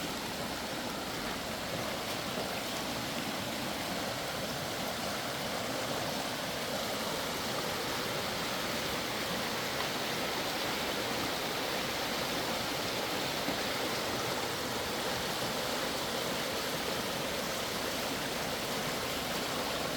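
Creek running full after days of heavy rain: a steady, unbroken noise of flowing water.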